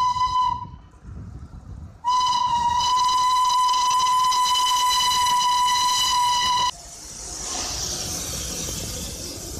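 Darjeeling Himalayan Railway steam locomotive's whistle: a short blast, then a long steady blast of about four and a half seconds that cuts off sharply. After it comes a hiss of escaping steam that grows louder.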